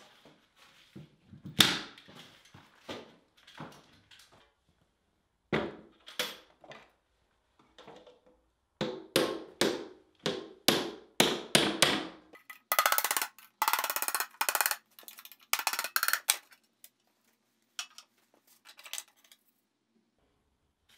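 A claw hammer working the lid of a metal tin of linseed paint: a series of sharp, irregular metallic knocks, then a dense run of quick clinks and rattles as the lid comes free. It ends with a few faint ticks.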